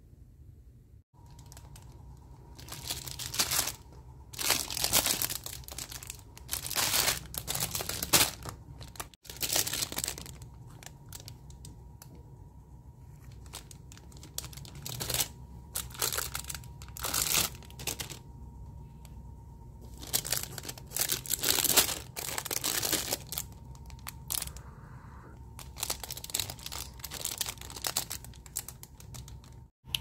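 Clear plastic bags around Pop It fidget toys crinkling in irregular bursts as the bagged toys are picked up, moved and laid out.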